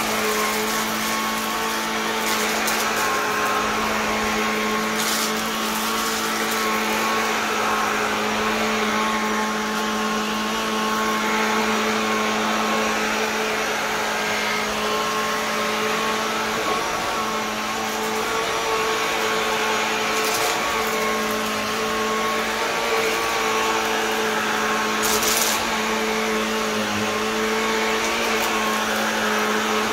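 Vacuum cleaner motor running steadily with a constant whine, broken by three brief higher hisses.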